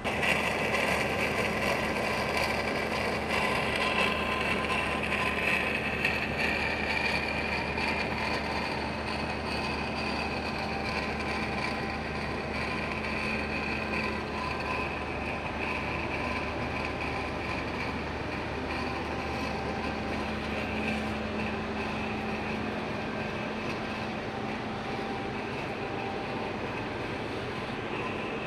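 Large industrial lathe running: a steady mechanical drone with a low hum and a high whine.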